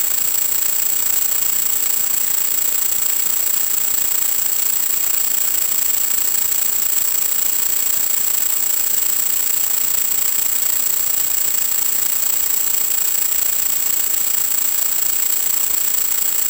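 Steady static hiss, strongest in the highs, with a thin constant high-pitched whine: the noise of an analog 1.2 GHz FPV video link's audio channel, carrying no other sound.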